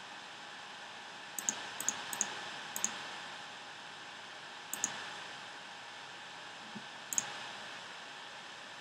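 Computer mouse clicks, each a quick press-and-release pair: four in the first three seconds, one near the middle and one near the end, over a steady hiss.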